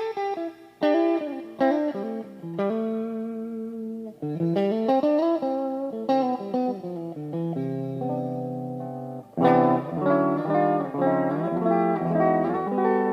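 Washburn MG-300 electric guitar being played: single-note lines with slides up and down, then a loud chord struck about nine and a half seconds in, followed by more notes and a chord left ringing.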